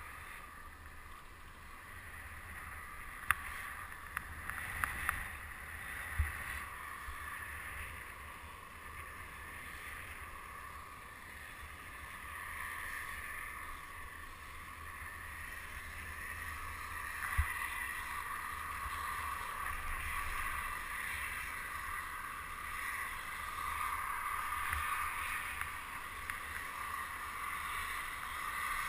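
Chairlift ride with steady wind-like rushing over a low rumble, broken by an occasional sharp click or knock.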